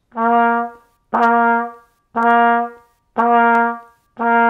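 A B-flat trumpet plays the same note five times, about one a second, each note held for about half a second. The pitch sits near concert B-flat below middle C, which is the trumpet's open C, played with no valves pressed.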